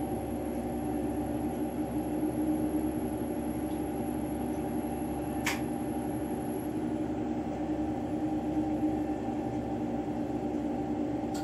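Steady hiss of a lampworking bench torch flame over a constant machine hum, with one short click about five and a half seconds in.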